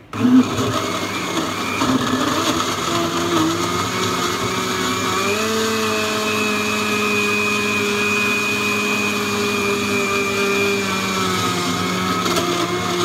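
Countertop electric blender switching on and running steadily, blending melon chunks with milk into a smoothie. Its motor note steps up in pitch about five seconds in and then holds.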